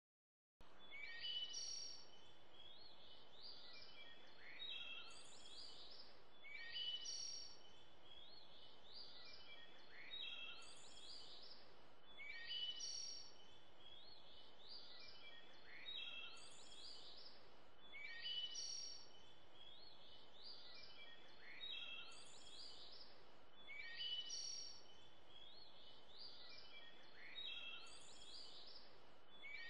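A small songbird singing the same short, high, chirping phrase over and over, about every two to three seconds, over a steady faint hiss.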